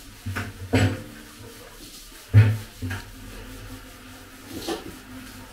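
A few knocks and rustles of handling as salt is poured from a plastic packet into a large plastic basin, the loudest knock about two and a half seconds in.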